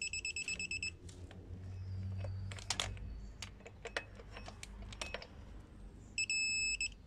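Rapid electronic beeping, about six beeps a second, from the buzzer of a digital torque wrench, the signal that a water-pump bolt has reached its set torque; it stops about a second in. A few sharp clicks and knocks of tool work follow, and the beeping comes back briefly near the end.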